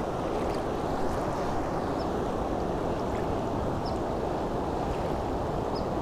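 A river running high and fast, a steady even rush of water.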